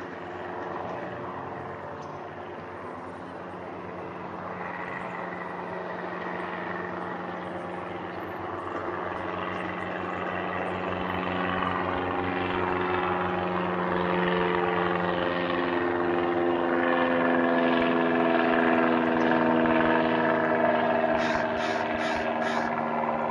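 Propeller aircraft flying overhead after take-off, a droning hum of several steady tones that grows steadily louder as it approaches.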